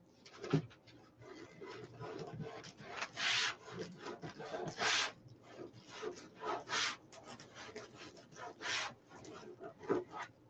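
Crafting mesh and ribbon being handled and worked onto a wire wreath frame: irregular scratchy rustling and rubbing strokes, some longer, some short.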